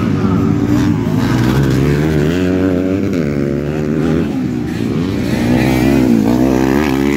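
Motocross dirt bike engines revving up and down as they race through a corner, with one bike passing close about six seconds in.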